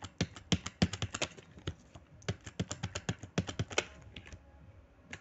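Typing on a computer keyboard: quick runs of key clicks, thinning out to a few scattered keystrokes near the end.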